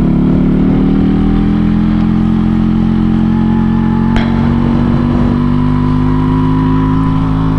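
Yamaha RX-King's single-cylinder two-stroke engine in Medan-style 'ngorok' tune, running at a steady, even pitch under way. There is one sharp click a little past halfway.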